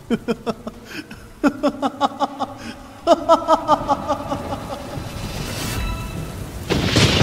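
Dramatic intro music: a run of quick, sharply struck notes, then sustained ringing notes, with a loud whooshing boom near the end.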